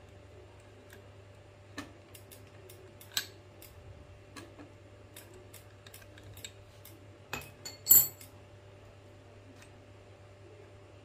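Scattered metallic clicks and clinks of a wrench and alloy bicycle pedal parts being handled while a pedal is worked on, with a short, louder clatter about eight seconds in.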